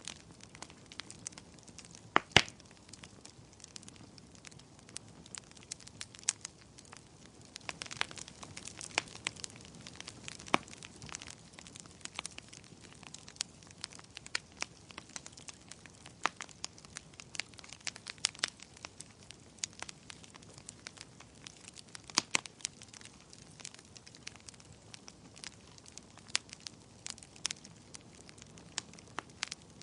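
Wood fire crackling in a fireplace: frequent irregular sharp pops and snaps over a faint steady hiss, the loudest pair of pops about two seconds in.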